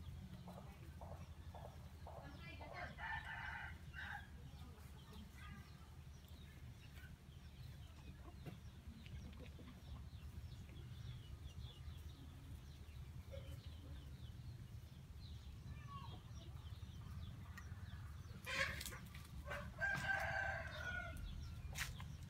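A rooster crows twice: a short crow about three seconds in and a longer one near the end, with a few sharp knocks just before the second.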